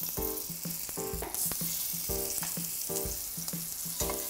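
Beef short ribs sizzling in hot olive oil in a stainless steel pan as they are laid in one by one to sear, over background music with a steady beat.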